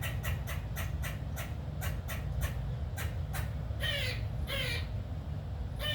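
Squirrel alarm calling at a cat: a run of short, sharp barks, rapid at first and slowing down, then two longer raspy calls near the end.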